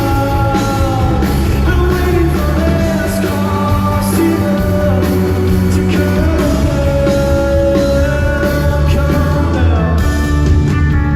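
A live rock band playing a song with a male lead singer holding long, bending sung notes over a steady bass and drum beat.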